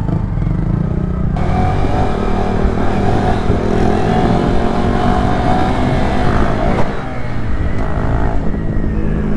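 Honda Grom's single-cylinder four-stroke engine running hard under acceleration. It gets much louder about a second in and eases off near the end.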